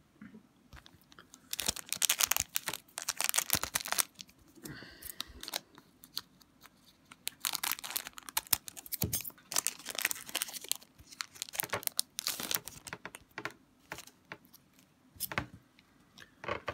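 Foil wrapper of an Upper Deck Portfolio hockey card pack crinkling and being cut open with scissors, in several bursts of crackling separated by short pauses.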